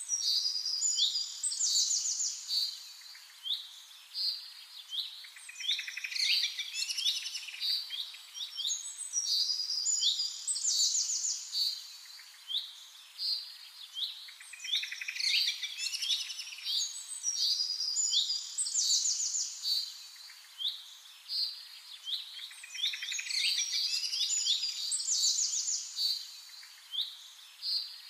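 Several songbirds singing at once, a dense mix of high chirps and trills that swells in bursts every few seconds.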